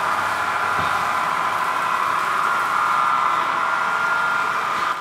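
DCC-controlled model diesel locomotive running along the track with a short freight train, giving a steady mechanical whine and hum.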